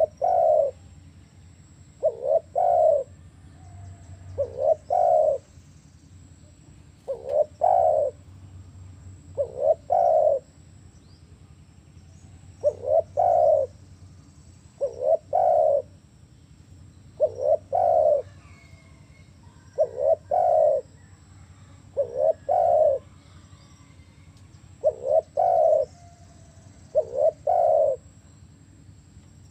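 Spotted dove (tekukur) cooing: a short note followed by a longer one, repeated about every two to two and a half seconds.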